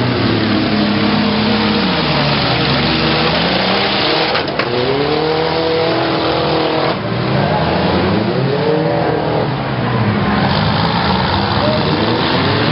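Demolition-derby pickup truck engines revving hard, their pitch repeatedly rising and falling, over a steady loud din of more engines. A brief sharp knock comes about four and a half seconds in.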